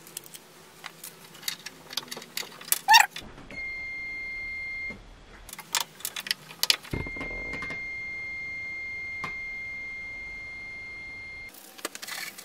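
Clear plastic blister packaging of W5W bulbs clicking and crinkling as the bulbs are taken out, with a short squeak about three seconds in. Then a steady high electronic beep sounds twice, first briefly and then for about four and a half seconds, with more small clicks of hands working between the two.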